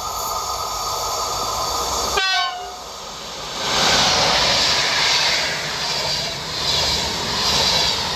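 Electric passenger train's horn sounding a steady chord as it approaches, cutting off about two seconds in. The PKP Intercity electric locomotive and its coaches then pass at speed, a loud rush of wheels on rails that swells and eases as the cars go by.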